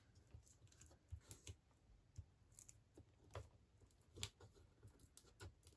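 Faint scattered light clicks and taps of small die-cut paper pieces being handled on a craft mat, with quiet room tone.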